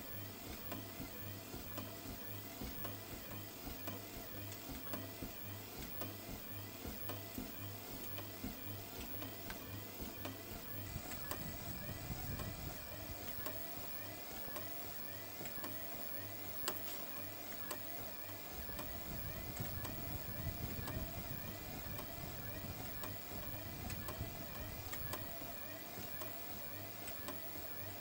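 TR500 motorized treadmill running, a steady motor whine and hum with the rhythmic thud of footsteps walking on the belt.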